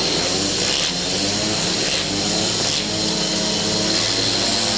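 Several speedway bikes' 500 cc single-cylinder methanol engines revving at the starting tape, their overlapping notes rising and falling as the riders blip the throttles before the start.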